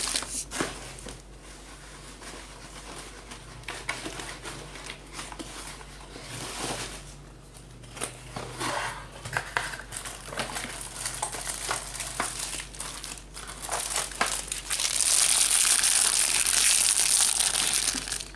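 Clicks and light rustling as a Baofeng UV-82 handheld radio is handled and its buttons pressed. About fifteen seconds in, a loud, steady hiss of radio static starts from the radio's speaker.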